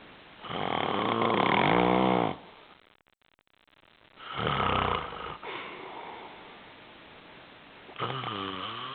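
Loud snoring: a long pitched snore of about two seconds, a shorter, lower one about four seconds in, and another snore starting near the end.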